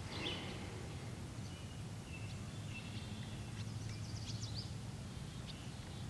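Small birds calling in the background: scattered short high chirps and whistles, with a quick chattering run about four seconds in, over a steady low hum.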